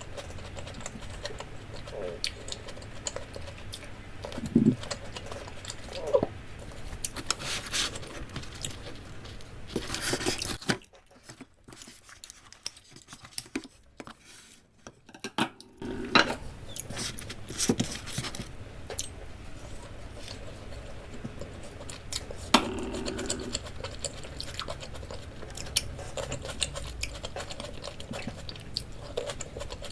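Eating and tableware sounds: chewing, with scattered taps and clinks of dishes and cutlery, and a quieter stretch in the middle.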